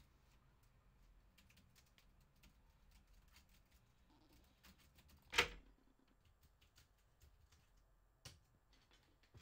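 Laptop keyboard typing: scattered, quiet key clicks, with one much louder sharp knock about five seconds in and a smaller one near the end.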